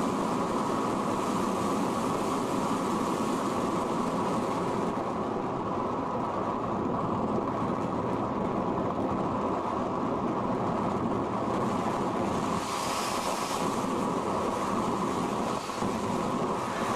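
Steady rushing wind noise from air streaming over an RC sailplane's onboard camera microphone in gliding flight, with a short burst of brighter hiss about thirteen seconds in.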